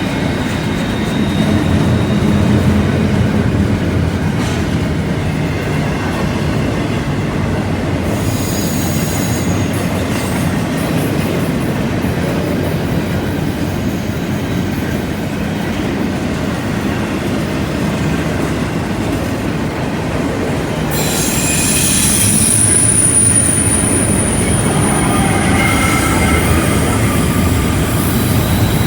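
Freight train of double-stack and autorack cars rolling through a curve: a steady rumble of wheels on rail, with high-pitched wheel flange squeal that comes in briefly about eight seconds in and grows strong and sustained over the last third.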